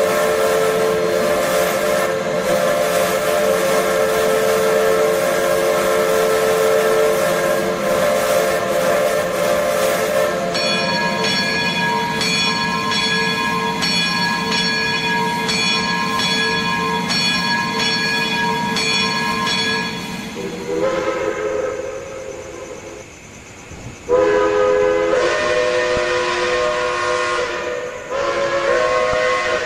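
Multi-chime steam locomotive whistle sounding long held chords, presented as an Alco five-chime whistle, with a hiss beneath. About a third of the way in the sound turns brighter, with a regular beat; after a short dip it returns in louder, shorter blasts.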